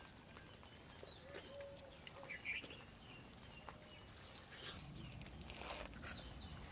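Quiet background ambience with faint scattered clicks, a short faint chirp about two and a half seconds in.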